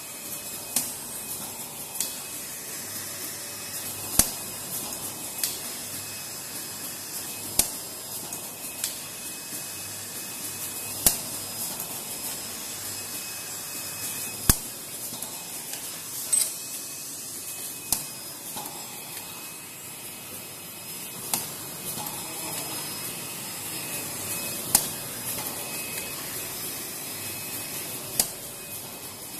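Automatic cotton swab making machine running: a steady hiss with sharp clacks every two to three seconds.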